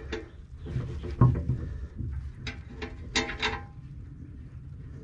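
Irregular metal clanks and knocks, the loudest about a second in, as a Land Pride rotary cutter blade is worked back and forth on its blade bolt against the blade holder. The bolt is stuck and will not come out.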